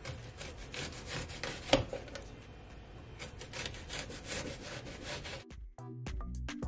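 Kitchen knife slicing a peeled onion into rings on a wooden cutting board: a quick run of crisp cutting strokes, several a second, each knocking the board. Near the end the cutting gives way to background music with a beat.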